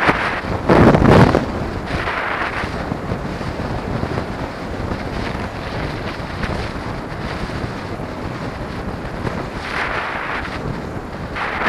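Wind rushing over the microphone on a moving two-wheeler. It is a steady rumbling hiss, with louder gusts about a second in and again near the end.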